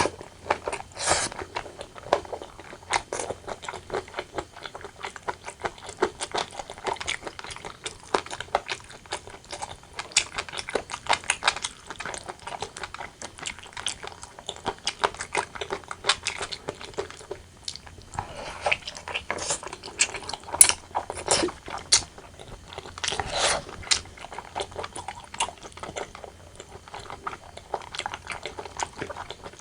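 Close-miked eating sounds: a person chewing braised pork and rice with many small wet clicks and smacks, a few louder bites standing out now and then.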